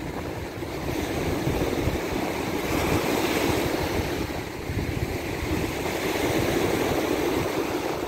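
Surf washing on the Sea of Azov shore, a steady rushing that swells and eases, with wind buffeting the microphone in low rumbles.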